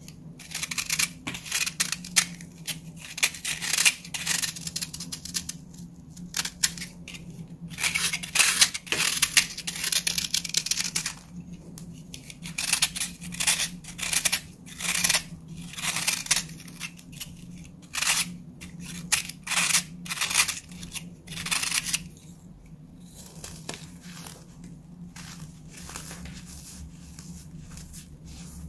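Block of dried baking soda being crushed in the hands and broken with a knife: a dense run of crisp crunching and crumbling. From about 22 seconds in the crunching turns softer and sparser as the pieces are rubbed into powder.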